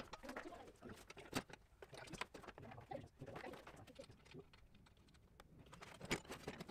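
Faint, scattered clicks and knocks of bolts, nuts and metal brackets being handled while a basketball rim is fitted to its backboard.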